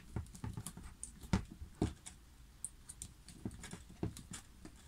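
Scattered small clicks and taps of a hand screwdriver working on a carbon-fibre quadcopter frame as a motor's mounting screws are tightened. Two sharper knocks come about a second and a half and two seconds in.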